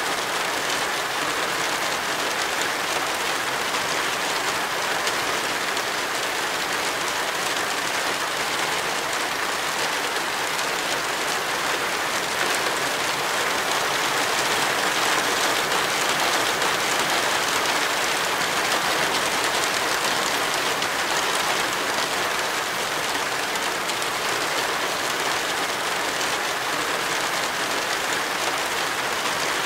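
Steady rain falling, an even hiss with no single drops or other events standing out, swelling slightly about halfway through.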